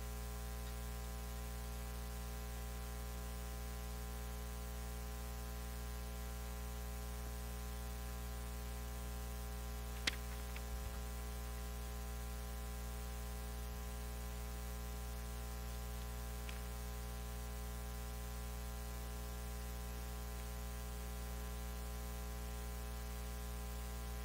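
Steady electrical mains hum with several fixed tones over a faint hiss of static. A single sharp click comes about ten seconds in, with two fainter ticks after it.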